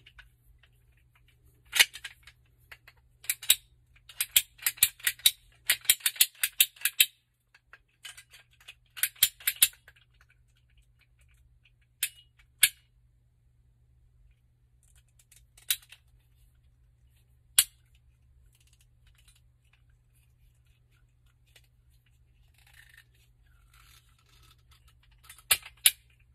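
Hard clicks and rattles of tools and PVC pipe parts being handled: quick runs of clicks in the first ten seconds, then single sharp clicks every few seconds, over a faint low hum.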